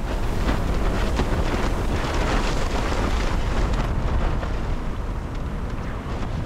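Strong wind buffeting the microphone over the rushing, splashing water of choppy seas along the hull of a sailing yacht beating upwind in a gale.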